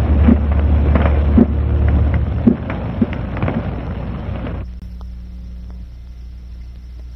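Film battle sound effects: a heavy low rumble with scattered sharp bangs. It cuts off suddenly about four and a half seconds in, leaving a quieter low steady hum.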